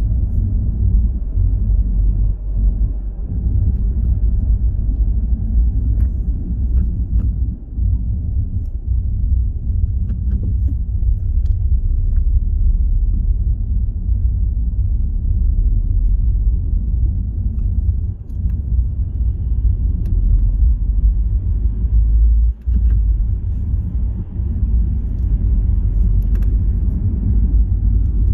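Car driving at motorway speed: a steady, loud low rumble of road and engine noise.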